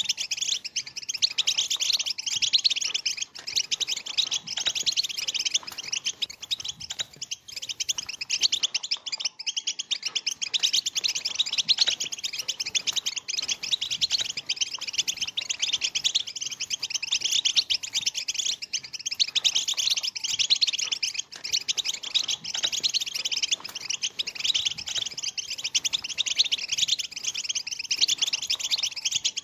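A flock of European goldfinches, many of them juveniles, twittering and chattering together without a break: a dense chorus of quick, high chirps and trills.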